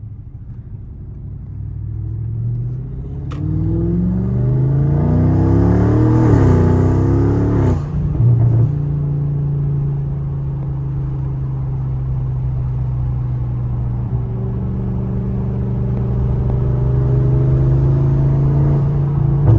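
Audi S8 V8 with catless downpipes and an aftermarket intake, accelerating hard, its engine note climbing for several seconds. About eight seconds in the note drops sharply as the throttle is lifted, and the engine settles into a steady drone while the car cruises.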